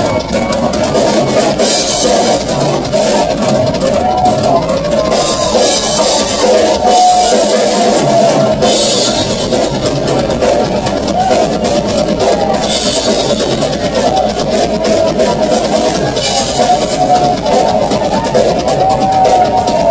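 Live rock drum solo on a full drum kit: fast, dense hits on the drums, with cymbal crashes bursting out about every three to four seconds, five times.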